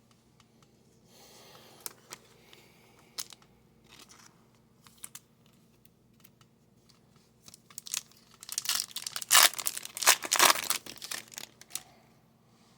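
A foil trading card pack wrapper being torn open and crinkled, with dense, loud crackling in the last few seconds, after a few light clicks and taps of handling.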